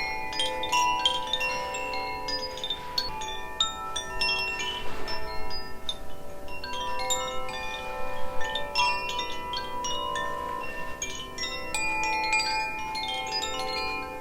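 Two Koshi chimes, the Aria (air) and Ignis (fire) tunings, rung together. Frequent light strikes set many tuned tones ringing over one another in a continuous shimmer.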